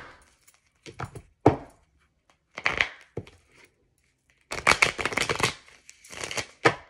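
A deck of tarot cards handled on a table: several sharp taps of cards striking the surface, short rustles, and a longer shuffling rustle of about a second a little past the middle.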